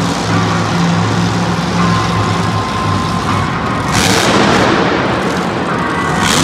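A monster truck's supercharged V8 runs with a steady engine note. About four seconds in, and again near the end, it breaks into loud, rough blasts as the truck launches over a jump.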